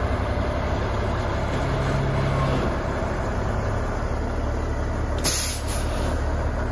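Airport crash fire truck's diesel engine running as the heavy truck rolls slowly along, with a brief hiss about five seconds in.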